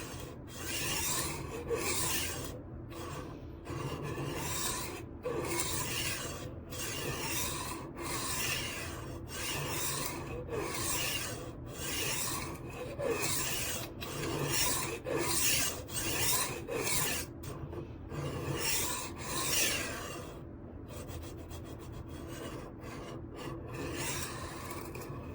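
HORL 3 Cruise rolling sharpener's diamond disc grinding a steel chef's knife edge as it is rolled back and forth, a rasping hiss with each stroke, about one stroke a second. The strokes grow softer over the last few seconds.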